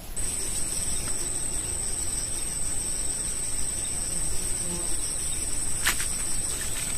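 An insect calling with one steady, high-pitched buzz that does not break, and a single sharp click about six seconds in.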